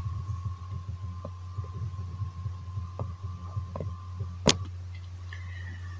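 Steady low hum with faint irregular low thumps and a few small clicks, one sharp click about four and a half seconds in.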